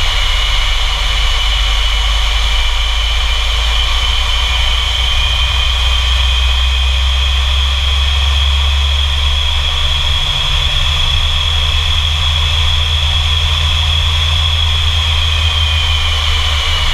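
English Electric Lightning's twin Rolls-Royce Avon turbojets running during a taxi run, heard from inside the cockpit: a high turbine whine over a deep rumble. The whine climbs a little in the first few seconds, holds, and drops away near the end.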